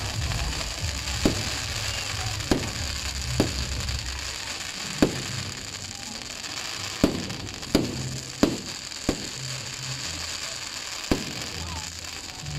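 Fireworks display: aerial shells bursting overhead with sharp bangs at irregular intervals, about nine in all, over a steady background hiss.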